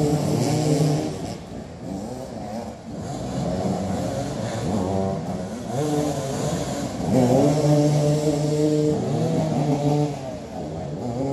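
Several motoball motorcycles running and revving together as the players jostle for the ball, their engines repeatedly rising and falling in pitch. It is loudest about a second in and again from about seven to ten seconds.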